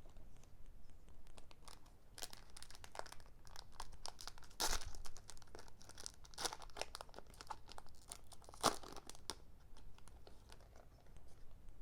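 Foil wrapper of a Pokémon booster pack being torn open and crinkled, with scattered crackles and a few louder rips about four and a half, six and a half and eight and a half seconds in.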